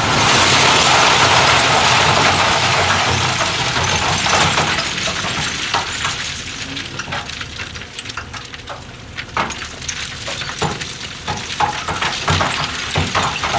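Soil and stone pouring and tumbling. It starts suddenly loud with a rushing hiss, then thins into scattered clattering knocks of stones, over a low engine rumble.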